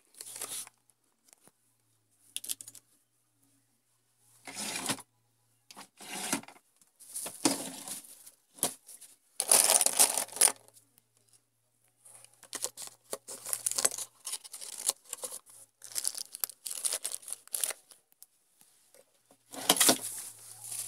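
Irregular rustling, scraping and rattling of notebooks, papers and pencils being handled and put away in a box and holder, with a plastic bag crinkling near the end.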